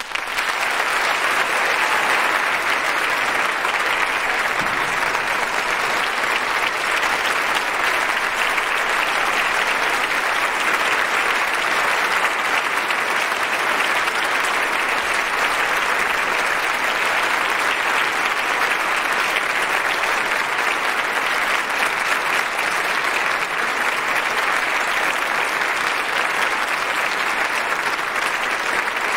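Loud, steady applause from a large audience at the close of a choir performance.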